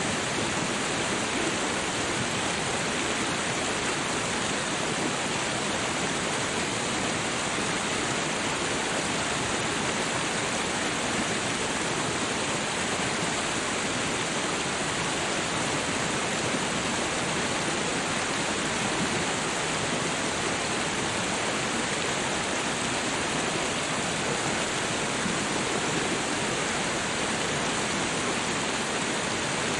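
Steady rushing water, an even unbroken hiss that does not change.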